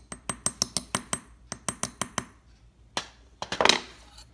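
Quick light metallic taps of a small hammer on a flat punch in a watchmaker's staking tool, in two runs of about six taps a second, seating the balance wheel onto its new balance staff. Near the end a single knock and then a louder short clatter of metal.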